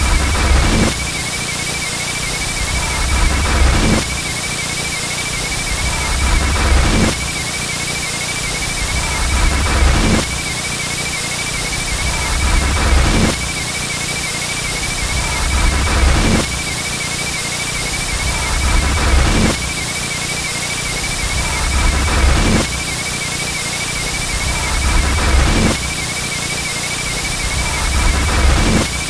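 Looped car-beeping sound effect: a warbling high electronic beep tone over a low vehicle rumble, swelling and repeating about every three seconds.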